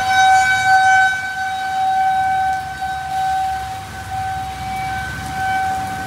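Outdoor tornado warning siren wailing on one steady pitch. Its loudness rises and falls as it sounds.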